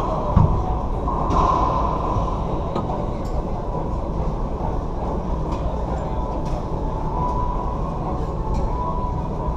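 A racquetball strikes a wall with a sharp low thump about half a second in, after a swing. Behind it runs a steady low rumble of room noise in the enclosed court, and a few faint ticks follow as play stops.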